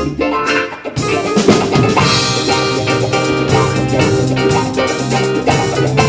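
Live rock band playing an instrumental passage with no singing: a sparse guitar part, then about a second in the drum kit, bass, guitars and keyboard come in together and play on.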